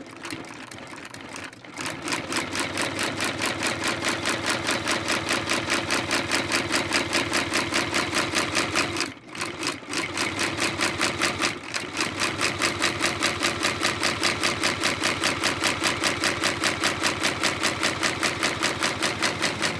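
Industrial outsole-stitching machine running, stitching through a boot's leather sole and welt with a fast, even clatter of about four stitches a second. It stops briefly twice near the middle.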